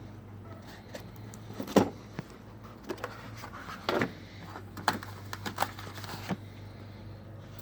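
Scattered clicks and light knocks as a socket set case is unlatched and opened and the chrome tools inside are handled; the loudest knock comes about two seconds in.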